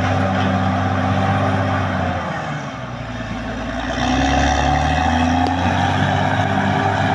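Caterpillar D6R XL bulldozer's diesel engine running under load. It runs steadily, sags about two seconds in, then comes back louder with a deeper note from about four seconds in.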